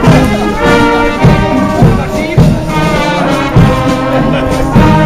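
Brass band playing a march, with regular drum beats under the horns.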